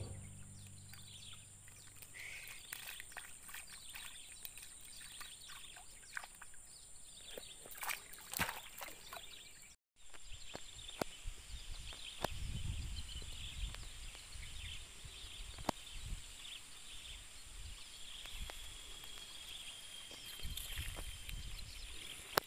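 Faint outdoor ambience: a steady high hiss with scattered small clicks, cut by a short dropout about ten seconds in, after which a low rumble comes and goes and a faint drawn-out high tone sounds near the end.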